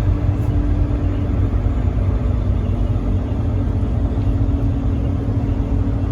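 Steady low rumble of a car driving along the road, engine and tyre noise heard from inside the cabin, with a faint steady hum above it.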